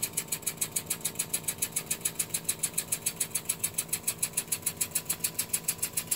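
The small electric motor and drive of a scale model Nautilus running, ticking steadily about five or six times a second over a faint steady hum.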